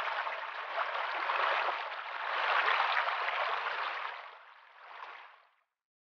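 Shallow stream running over rocks, a steady rush of water that fades away about four seconds in and is gone after about five and a half seconds.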